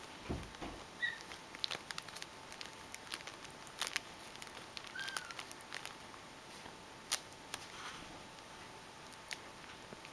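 Thin plastic bag crinkling and crackling in scattered irregular bursts as a kitten moves around inside it, with the sharpest crackle about seven seconds in.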